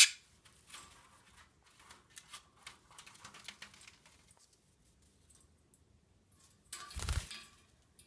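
Small scratchy clicks and rustles from a green-cheeked conure moving about, followed about seven seconds in by a louder, brief rustling burst with a low thump.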